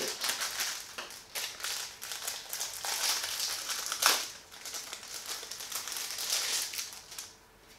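Plastic packaging bag crinkling and rustling in close irregular bursts as it is handled and pulled off a folded sunshade hood, with one sharp tap about four seconds in.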